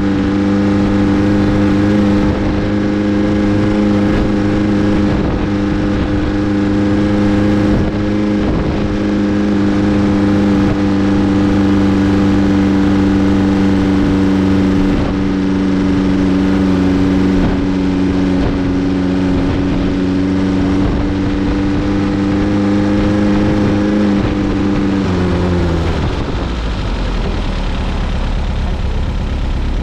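Open dune buggy's engine running at a steady speed over a sandy trail, with wind and tyre noise. About 25 seconds in the revs drop as the buggy slows, and the engine settles to a lower note.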